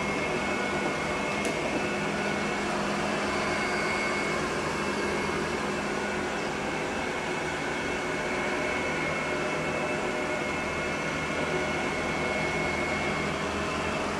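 Robot vacuum cleaner running: a steady whir of its motor and brushes with a thin high whine over a low hum.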